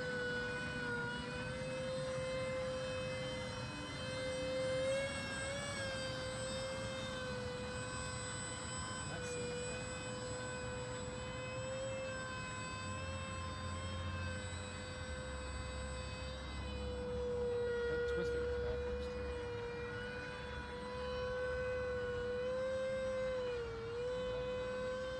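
Electric motors and propellers of a Banana Hobby V-22 Osprey RC model in flight: a steady high-pitched whine that wavers slightly in pitch, dipping briefly near the end.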